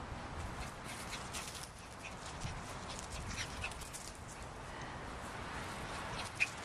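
Small dogs play-fighting: scuffling and rustling throughout, with a few brief high-pitched yips, the sharpest one near the end.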